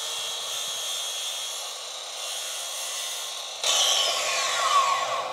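Makita sliding compound miter saw running at full speed with a steady whine. About three and a half seconds in, the blade is lowered into a primed skirting board and the sound turns louder and rougher as it cuts through.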